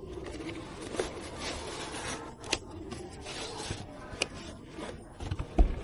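Hands handling PC components: rubbing and scraping with a few sharp clicks, and a dull thump near the end.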